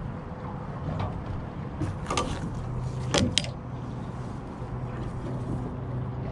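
Clatter and sharp knocks of a metal landing net and its handle against the metal boat as the net is brought aboard, loudest as two quick knocks about three seconds in, over wind and water noise and a steady low hum.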